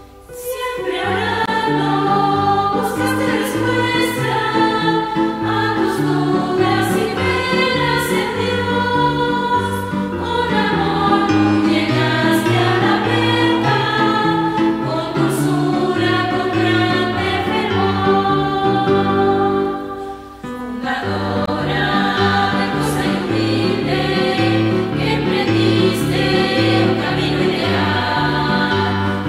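A choir singing a Spanish-language hymn to instrumental accompaniment, with a short break in the music about twenty seconds in between sung lines.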